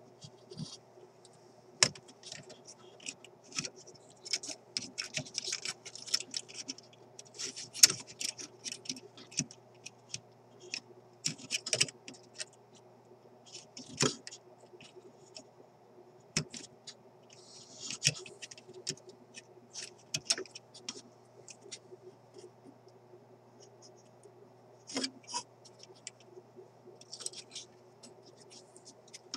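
Long-nose pliers and a new capacitor's wire leads clicking and scraping against the metal parts of a vacuum-tube radio chassis, in irregular small clicks and short scratches, over a steady low hum.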